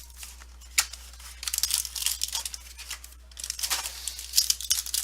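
Plastic wrapping on a pack of football trading cards being torn open and crinkled in the hands, in crackly bursts with a short break about three seconds in.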